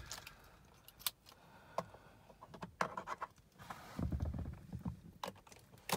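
Faint handling noises inside a car cabin: a few scattered sharp clicks and short scratchy rustles, with no engine running.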